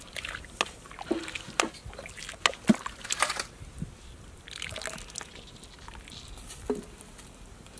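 Hot water sloshing and splashing in a wok as baby crocodiles are dunked, ladled over with a wooden ladle and lifted out, with water dripping back into the pan. Many short splashes in the first few seconds, then softer sloshing.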